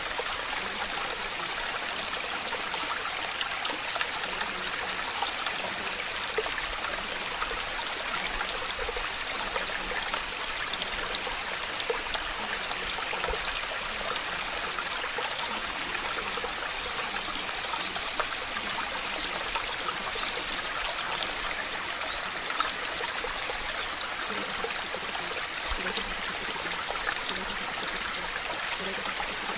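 Steady water noise: a dense, even hiss with many small ticks like falling drops.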